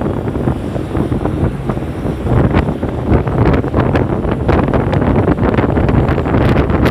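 Wind buffeting the microphone of a camera on a moving motorcycle, a steady rumbling rush with constant crackles, over the low noise of the engine and traffic.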